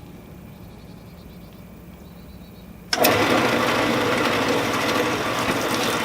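Low steady hum, then about three seconds in a metal-cutting saw switches on and runs steadily and loudly.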